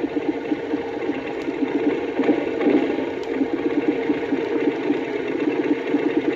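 Vehicle engine ticking over with a fast, even pulse.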